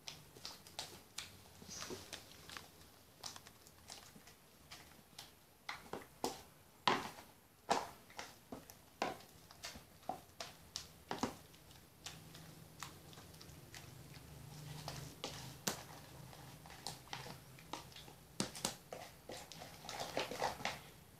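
Homemade glue-based jelly slime being stretched and kneaded by hand and stirred with a spoon in a plastic tub: an irregular run of small sticky clicks and snaps.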